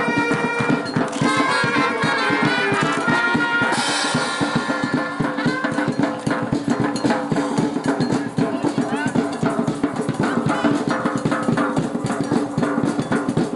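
Band music with brass and drums: brass holding notes at first, then a steady drum beat takes over about four seconds in.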